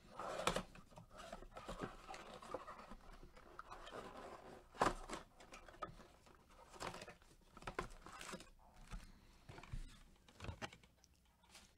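Cardboard trading-card blaster box being torn open and its foil card packs slid out and stacked: rustling and tearing with light taps, and a sharper knock about five seconds in.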